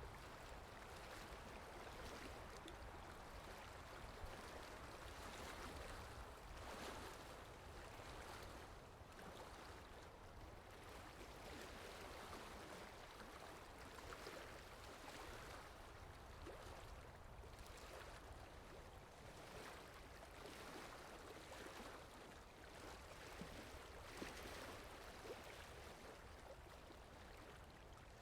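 Water lapping with wind: a faint, continuous wash that swells and eases every few seconds, with a few small splashes and ticks on top.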